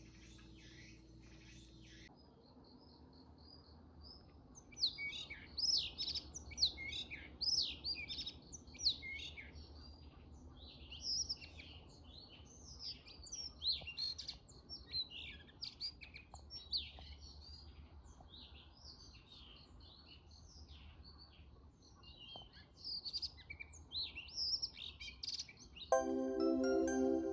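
Small birds chirping and twittering, many short high calls in quick succession, over a faint steady low hum. Music plays briefly at the start and comes back near the end.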